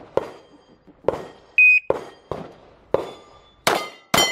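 Pistol shots crack about once or twice a second. An electronic shot-timer beeps once, briefly, about a second and a half in. Near the end the shots are followed by the ringing clang of steel plates being hit.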